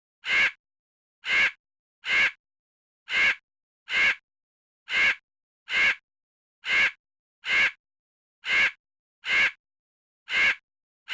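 Frog croaking sound effect: the same short croak repeated about once a second, with silence between the croaks.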